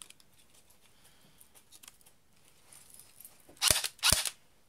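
Plastic parts of a CYMA electric Glock 18 airsoft pistol being handled: light clicks, then two loud plastic clacks about half a second apart near the end as the slide is fitted onto the frame.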